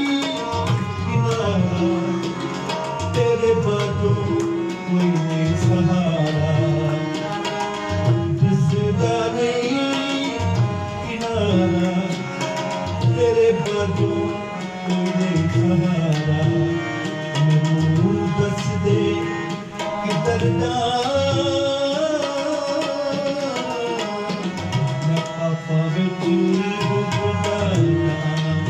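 Tabla and harmonium playing a devotional song with a man singing: steady tabla strokes under the harmonium's sustained reedy chords and the sung melody.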